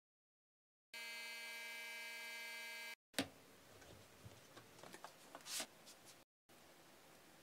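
Electrostatic powder-coating gun buzzing steadily for about two seconds. Then comes a sharp click, a few light knocks and a brief swish as the door of the small curing oven is opened.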